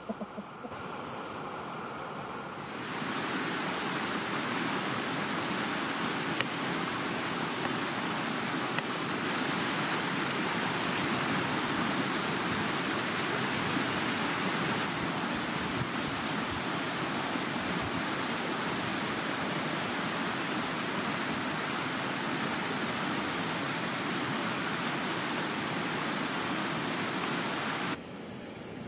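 Small mountain stream rushing, a steady even noise that comes in suddenly about three seconds in and drops abruptly to a much quieter level near the end.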